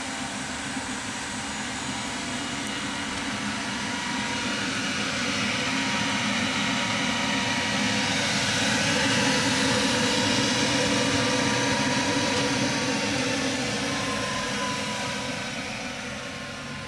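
Kellenberger 125/600U cylindrical grinder running, a steady rushing machine noise with its wheel retracted. The noise swells to its loudest in the middle and fades toward the end.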